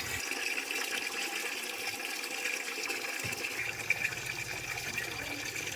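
Water running steadily into an empty sheep water trough as it is being filled.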